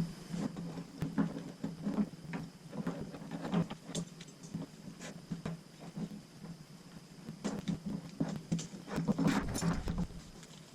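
Irregular handling noise of a climbing rope bridge being threaded through a metal rigging plate's hole: scraping, rustling rope and small clicks, busiest in the first few seconds and again near the end.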